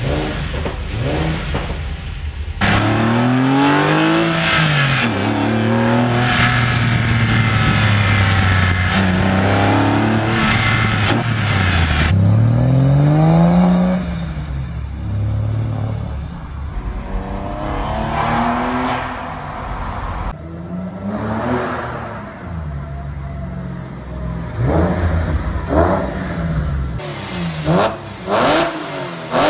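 2001 Porsche 911 (996) 3.4-litre flat-six revving again and again through custom stainless steel headers, an X-pipe and Fabspeed mufflers, its pitch rising and falling, in several short clips joined by sudden cuts. Near the end come a few quick, sharp throttle blips.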